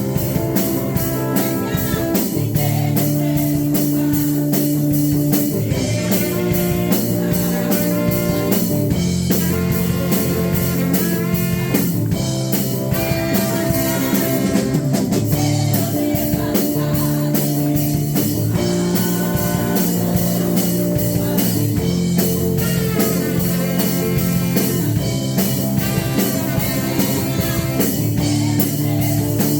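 Worship band music: a drum kit keeps a steady beat under guitar and held chords.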